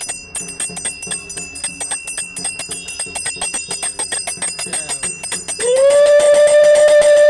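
Small brass puja hand bell rung fast and continuously, a steady high ringing over rapid strikes. About five and a half seconds in, a loud held tone starts, sliding up at first and then holding steady, and becomes the loudest sound.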